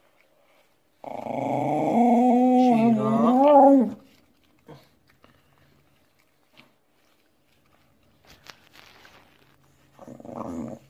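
Shiba Inu growling while eating from a shared food tray, a warning typical of food guarding: one long growl of about three seconds that wavers and rises in pitch near its end, then a shorter growl near the end. Faint clicks of eating lie between them.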